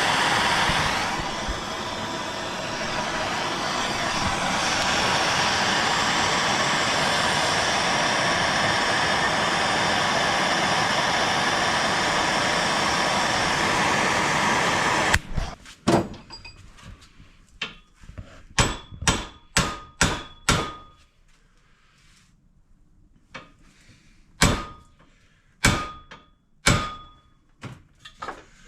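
A torch hisses steadily as it heats a driveshaft U-joint yoke to melt out the injected plastic retainers, then shuts off abruptly about halfway through. About a dozen ringing hammer blows on the steel yoke follow, in quick runs with short pauses, driving the U-joint out.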